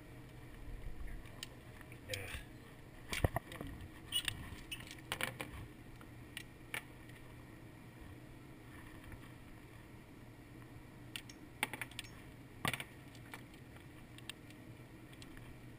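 Scattered sharp metallic clicks and clinks of a revolver being handled, over a low steady hum. The loudest click comes about three seconds in and another near the end. No shot is fired.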